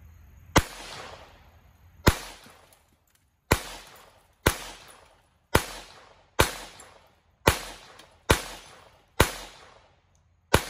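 Ten shots from a Kel-Tec P17 .22 LR semi-automatic pistol, fired one after another about a second apart at a slightly uneven pace. Each is a sharp crack that trails off briefly.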